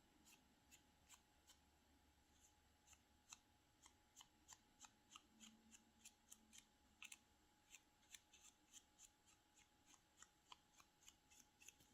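Near silence broken by faint, irregular light taps, about two a second from a few seconds in: a tool dabbing silver onto the collage paper.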